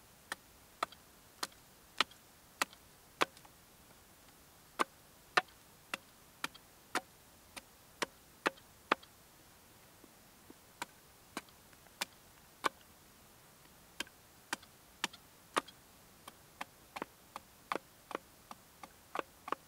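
A blade chopping into a stick held upright on a wooden chopping stump: dry, sharp wooden knocks, about two a second, with short pauses between runs of strokes.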